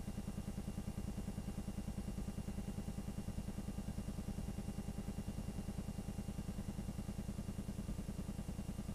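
Film projector running, a steady fast rhythmic clatter from its mechanism with a low hum underneath.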